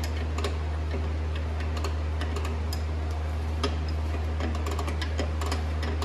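Light scattered clicks of a rear drum brake's star-wheel adjuster being turned to bring the shoes up, some in quick runs, over a steady low hum.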